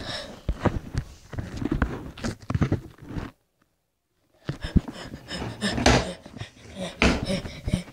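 Close handling noise from a phone being moved about by hand: irregular rubbing, bumps and clicks. It drops out to dead silence for about a second near the middle.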